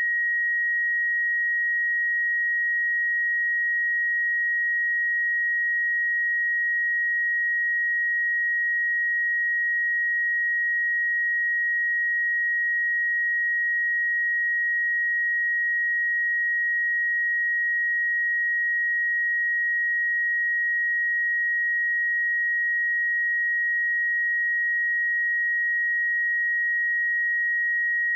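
A steady 1893 Hz sine-wave test tone: one pure, unbroken high-pitched tone at constant level, used for checking speakers and headphones.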